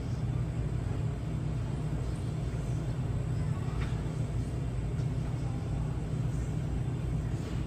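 Steady low rumble of a shop's background noise, with a couple of faint short sounds in the middle and near the end.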